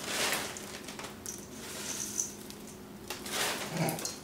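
Dry chocolate puffed-rice cereal pattering and rattling as it is poured into a stainless-steel mixing bowl, in two spells: one at the start and one about three seconds in.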